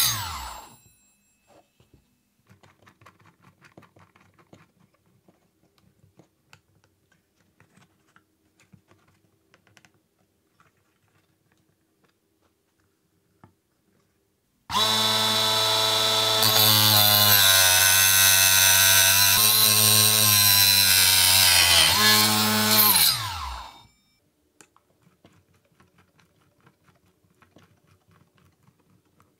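A small 3D-printed chop saw, driven by a 24 V 775 DC motor through a belt to a 65 mm circular blade, winds down in falling pitch at the start. Faint handling clicks follow. About halfway through, the motor starts abruptly and the blade cuts a metal rod for about eight seconds, its pitch wavering under the load. It then spins down with a falling whine, followed by more faint clicks.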